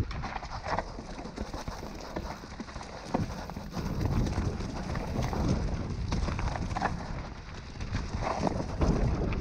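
Mountain bike riding fast down a rough dirt singletrack: tyres rolling over dirt and roots, with the bike clattering in a run of quick knocks and a heavy wind rumble on the microphone.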